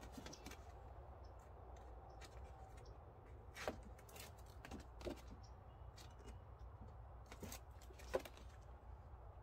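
Faint room tone with a few short crinkles and taps as a thin, clear plastic sheet is handled; the sharpest come about four seconds in and again near the end.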